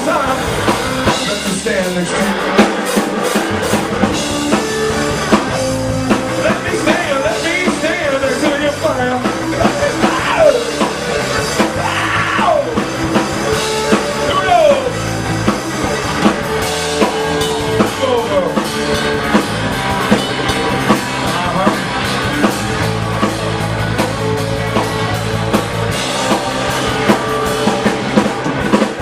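Live blues-rock band playing: drum kit, bass and electric guitar, with the guitar bending notes.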